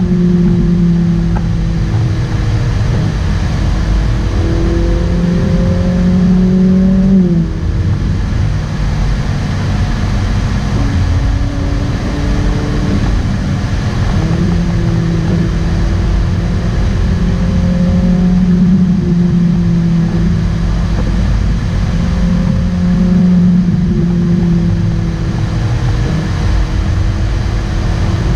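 Ferrari 458 Italia's V8 engine cruising at highway speed, heard from inside the cabin over steady road and tyre rumble. The engine note drops sharply about seven seconds in and picks up again a few seconds later.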